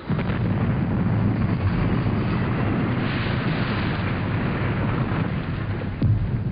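Aircraft engine noise: a loud, deep, steady rumble with a rushing hiss above it, cutting in abruptly at the start.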